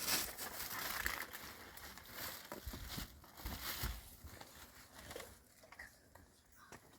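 Rustling and crinkling, as of dry material being handled, loudest over the first few seconds and then thinning to quieter scattered rustles.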